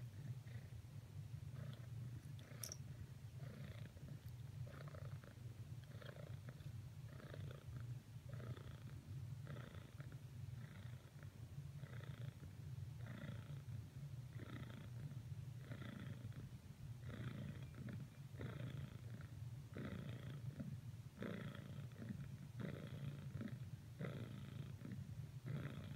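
Domestic cat purring steadily, close up, with a faint regular pulse a little more than once a second.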